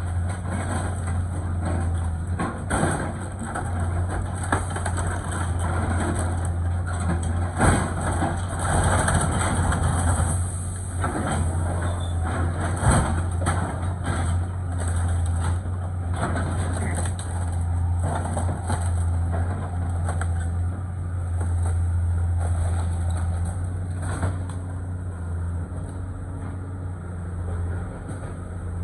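Tracked excavator's diesel engine running steadily while its arm tears into and crushes the wood-frame walls and roof of a house, with repeated cracks and crunches of splintering timber, the loudest about eight and thirteen seconds in.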